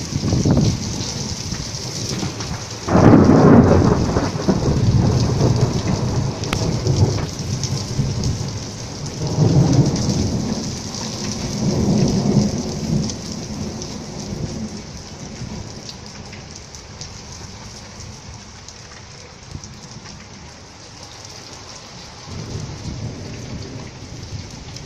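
Thunderstorm: steady heavy rain hissing, with a loud thunderclap about three seconds in that rolls on for several seconds, two more rumbles of thunder a few seconds later, then a quieter stretch of rain before another low rumble near the end.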